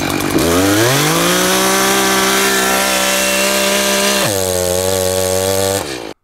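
Gasoline chainsaw revving up to full throttle and running steady, then its engine pitch drops abruptly about four seconds in as the chain bites into ANSI-rated chainsaw chaps and their fibers jam the chain. The sound cuts off suddenly near the end.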